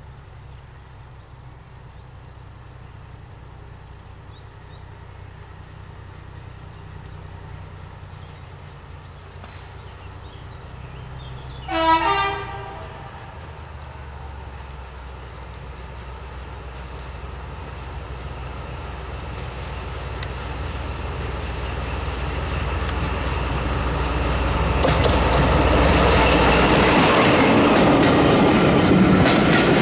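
Class 14 diesel-hydraulic locomotive's Paxman engine approaching with a steady low drone. It sounds one short horn blast about twelve seconds in. The sound grows steadily louder as it passes towing a coach and the disabled steam locomotive No. 60163 Tornado, with wheels clicking and rumbling over the rails near the end.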